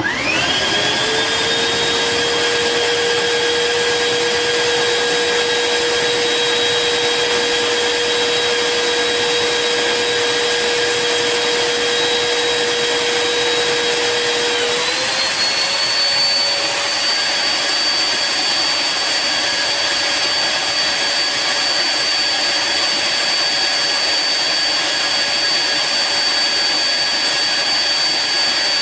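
Dreame G10 Combo cordless wet-dry vacuum switching on, its motor spinning up within about a second to a steady high whine. About halfway through, the pitch steps up as the motor speeds up, then holds steady.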